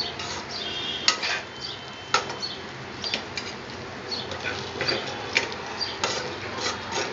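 Spatula scraping and knocking against a kadai while stirring drumstick pieces in dry, cooked gram flour. The strokes are irregular, with the loudest knocks about a second in, two seconds in and a little past five seconds.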